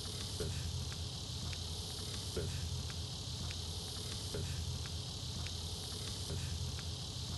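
A steady, high-pitched chorus of insects singing in the summer field, with faint footsteps ticking at walking pace on gravel and grass.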